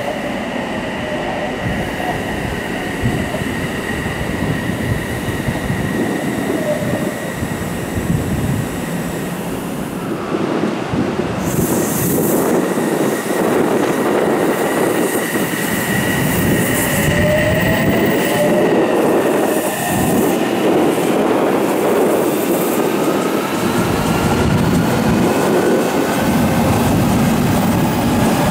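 Odakyu Line electric commuter train running alongside the platform: wheels rumble and clatter on the rails under the whine of its electric motors, with steady high tones and some wheel squeal. Near the end the motor whine rises in pitch as a train picks up speed.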